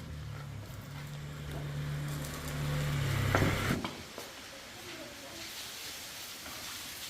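A low, steady machine hum that swells, peaks with a brief harsher burst, and cuts off about four seconds in, leaving a faint hiss.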